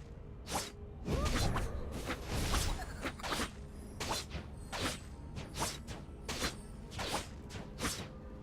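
A person wheezing: a quick string of short, noisy, rasping breaths, about one every half second to second.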